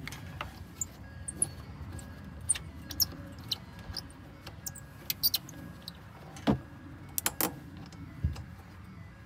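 Small metallic clicks and taps of wire connectors and terminals being fitted by hand on a small trailer breakaway battery, the loudest knocks about six and a half and seven and a half seconds in, over a low steady rumble.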